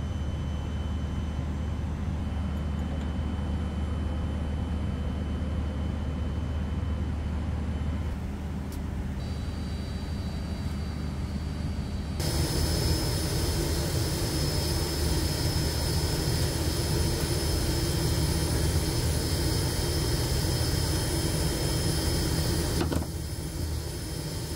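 Steady droning machinery noise around a parked airliner, a low hum with faint high whining tones. It changes abruptly twice, growing louder about 12 seconds in, and drops back near the end.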